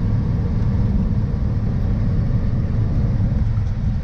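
Truck engine running steadily under way, with a low rumble, heard from inside the cab.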